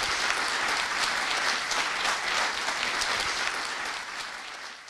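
Audience applauding, many hands clapping together; the applause fades out near the end.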